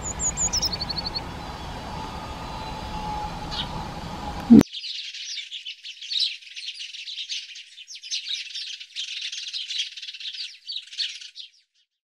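A short series of high, falling chirps over a faint steady hum near the start. Then, after an abrupt cut, house sparrows chirping in a dense, continuous chatter for about seven seconds, stopping suddenly.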